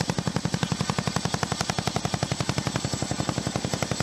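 CH-47 Chinook tandem rotors beating overhead while it hovers: a steady, rapid rotor chop of even beats, roughly a dozen a second.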